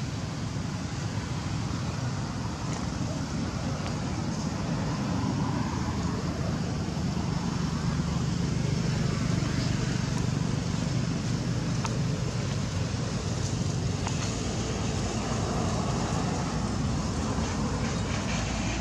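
A steady low rumble with a faint hiss over it, unbroken and without distinct events.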